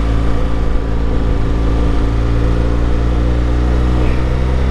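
Motorcycle engine running at a steady road speed, a low even drone holding one pitch, with road and wind noise under it.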